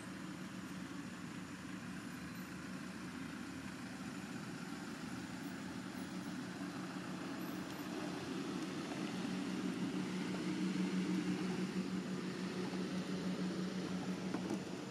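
A steady low engine hum, growing louder from about eight seconds in.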